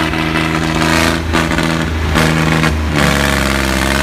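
Diesel tractor engine running hard under load in a tug-of-war pull. Its pitch dips about three seconds in as the engine lugs down, then slowly recovers.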